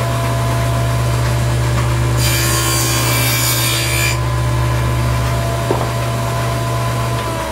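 Table saw fitted with a dado stack running steadily and cutting a groove through a mitred board for about two seconds, starting about two seconds in. Near the end the motor is switched off and starts to wind down.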